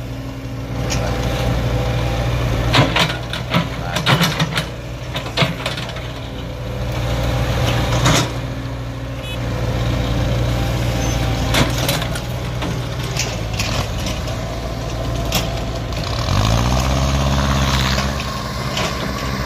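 Diesel engine of a Sumitomo SH75U tracked excavator running steadily as it digs wet field soil, with repeated sharp knocks and clanks. About sixteen seconds in, an engine revs up, rising in pitch, and holds at the higher speed.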